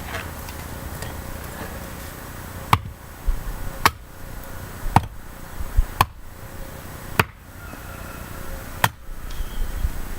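Axe chopping firewood by hand: six sharp strikes into wood, roughly one a second, starting a few seconds in.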